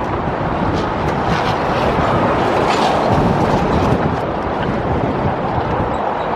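Wind blowing hard across the microphone, a loud, uneven rush of noise.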